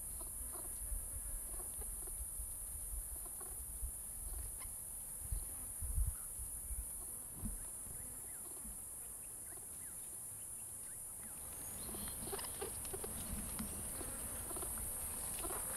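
Steady high-pitched insect chorus, with faint scattered rustles and short chirps that grow busier near the end, and a few soft low thumps about five to six seconds in.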